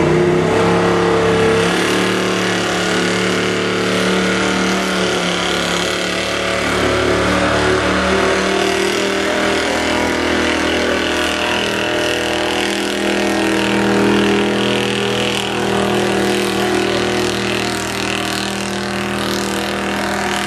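Ford pickup's engine running hard at high revs during a truck pull, a loud steady drone that mostly holds its pitch, shifting slightly about two seconds in.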